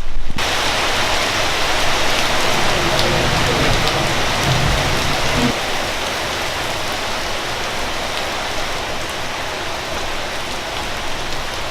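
Heavy hurricane rain pouring steadily, a dense even hiss of falling water, with a low rumble under it that stops about five and a half seconds in.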